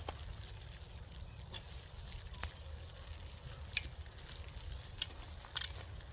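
Campfire crackling, with a handful of sharp pops scattered through it over a low rumble.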